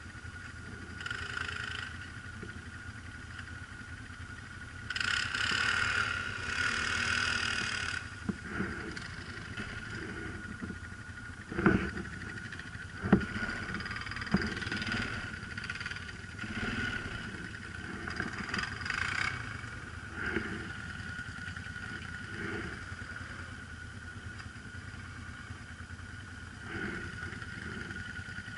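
Quad bike (ATV) engines: one idling steadily, with a louder rise about five to eight seconds in as a quad climbs a slope under throttle. A few sharp knocks come near the middle.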